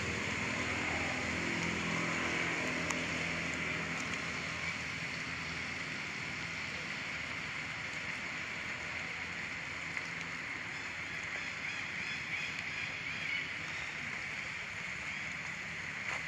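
Steady outdoor ambience: a continuous high, hiss-like drone, with a low hum under it through roughly the first half and a few faint ticks.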